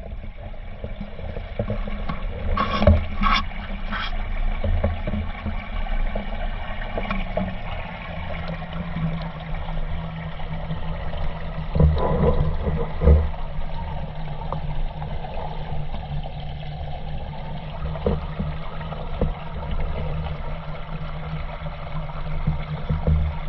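Pond water heard through a half-submerged camera housing: muffled gurgling over a steady low hum, with a few sharp knocks about three seconds in and again around twelve seconds.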